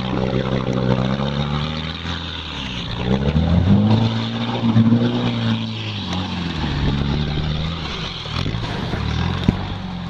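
UAZ off-roader's engine pulling through a flooded creek, with water splashing around the wheels. The revs climb about three seconds in and ease off again about six seconds in.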